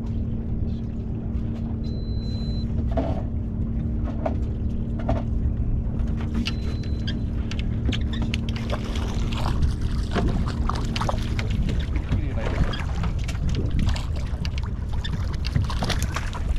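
Fishing boat's engine idling with a steady low hum, which stops about eleven seconds in. Water slaps and splashes more and more toward the end as a hooked fish is brought to the surface beside the boat.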